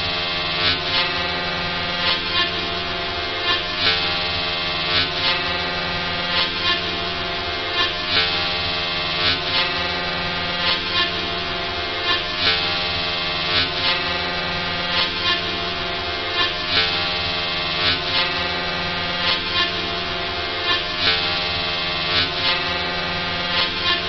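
Sci-fi energy shield (force field) sound effect: a steady, dense electric hum of many held tones, with short crackling surges at uneven intervals, about one a second.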